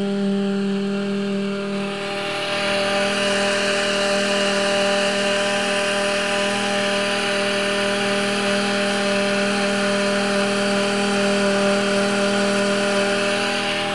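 Woodworking router used as a homemade boat outboard, running with a steady high-pitched motor whine. A hiss comes up about two seconds in and then holds steady.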